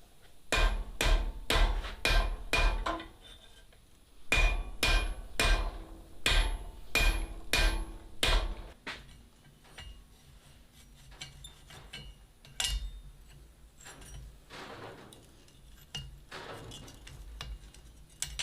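Blacksmith's hammer striking steel on an anvil with a ringing clang: about five blows, a short pause, then about nine more at roughly two a second, followed by lighter scattered taps.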